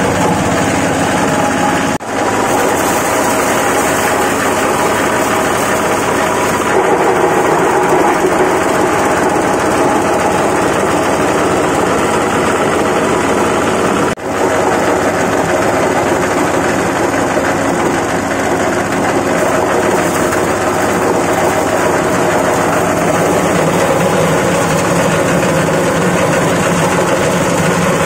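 Fabric and foam shredding machine running: a steady, loud mechanical drone of its motor and cutting blades, briefly dropping out twice, about 2 and 14 seconds in.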